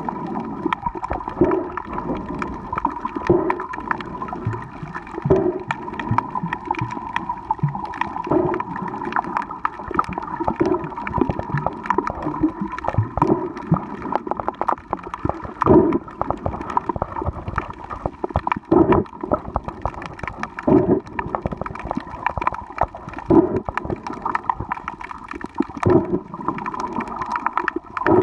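Underwater sound picked up by a camera in the water over a coral reef: muffled gurgling and rushing water that swells in pulses every two to three seconds, with a steady high hum and scattered sharp clicks throughout.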